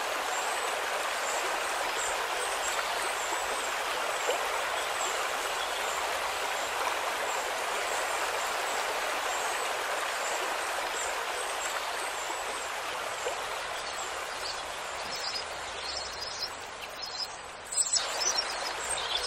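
Steady rush of flowing water like a stream, with faint high chirps over it. Near the end the water sound thins and a few louder chirps come in.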